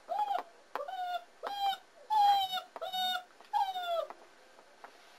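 German Shepherd puppy whining: about six short, high-pitched whines in quick succession, the last one falling in pitch, stopping after about four seconds.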